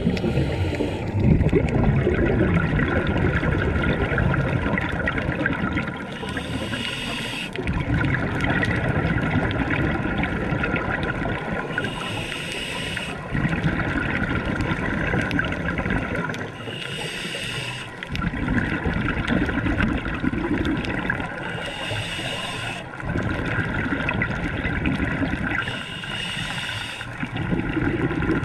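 Scuba diver breathing through a regulator underwater. Five short hissing inhales come about every five seconds, and between them are longer bursts of bubbling from exhaled air.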